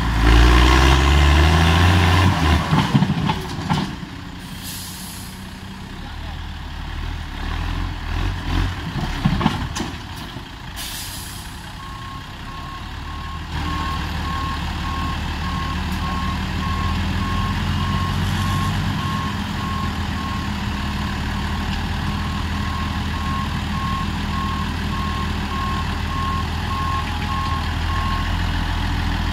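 Deutz-Fahr Agrosun 120 tractor engine with a straight-through exhaust revving up hard under load as it drags a loaded trailer out of soft ground, then dropping back and running unevenly. From around the middle it settles to a steady run while a reversing alarm beeps repeatedly.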